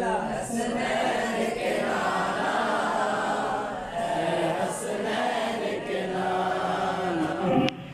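Several men's voices chanting together in a devotional chant, blended into one dense sound.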